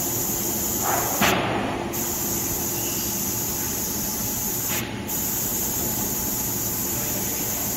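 Steady factory-hall machinery hum and air-handling noise, with a brief hiss about a second in.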